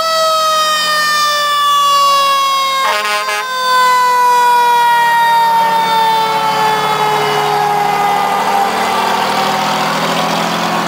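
Fire engine's mechanical siren winding down, its pitch falling slowly and steadily after being spun up, with a brief blast of another tone about three seconds in. The truck's engine grows louder in the second half as it passes close.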